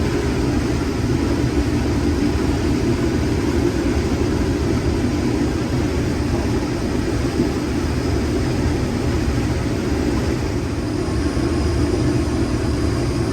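Case IH 2388 combine running steadily while harvesting corn, its engine and threshing machinery making a constant loud drone with a low rumble underneath.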